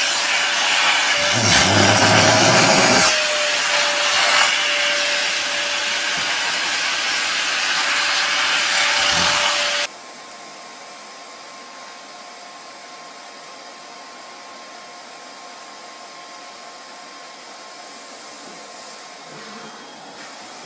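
A vacuum cleaner running loudly with a steady whine while its hose nozzle is held to a cat's fur. About ten seconds in it cuts to a second, quieter vacuum cleaner with a higher steady whine, again with its hose nozzle held to a cat.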